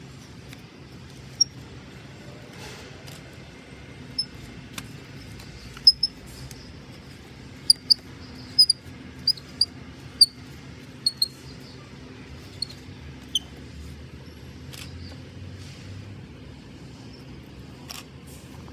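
Scotch eyed wood auger bit turned by hand into a dead log, giving a string of short, sharp, high-pitched squeaks at irregular intervals as the screw point and cutters bite into the wood, over a low steady background hum. A soft knock near the end.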